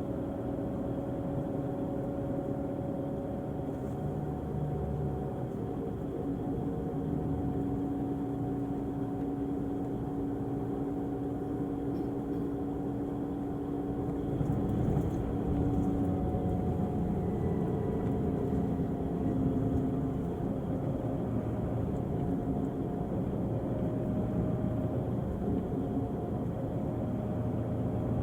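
Diesel engine of a Volvo-chassis Irizar i6s coach running steadily, with a little louder stretch from about halfway through.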